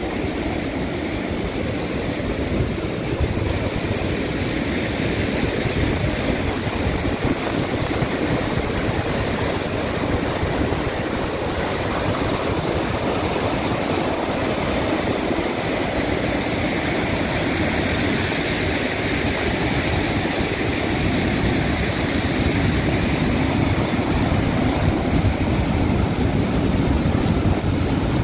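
Muddy floodwater rushing steadily over the edge of a flooded road in a broad cascade, a continuous, even roar of water.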